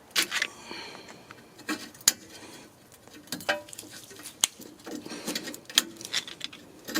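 Flat screwdriver prying and scraping at metal rear brake hardware: irregular sharp metallic clicks and short scrapes, with a brief faint ring near the start.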